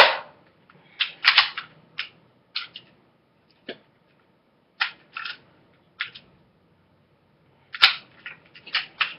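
Crosman Pumpmaster BB gun being handled between shots: about a dozen irregular sharp mechanical clicks and snaps, a few of them loud. They begin as the crack of a shot dies away at the very start.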